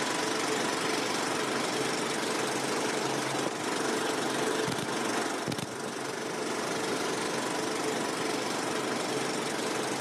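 Projection apparatus running with a steady mechanical noise and a faint hum.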